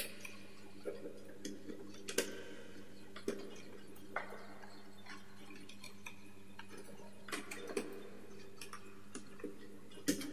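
Irregular small clicks and taps of hands handling and twisting insulated copper wires inside plastic electrical junction boxes, over a steady low hum.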